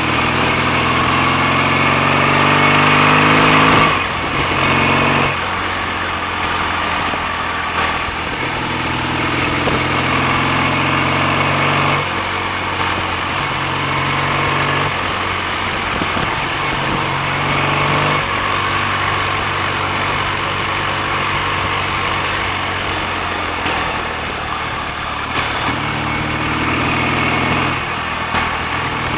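BSA A65 parallel-twin motorcycle engine under way, pulling up through the revs with a rising note, then dropping sharply about four seconds in as the throttle closes for a gear change. It then runs at a steadier road speed, the note shifting a few more times as the throttle and gears change.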